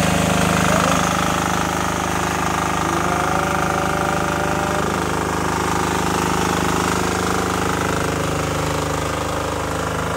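Engine-driven water pump running steadily, sucking water up a suction hose out of a newly drilled tube well to flush it clean.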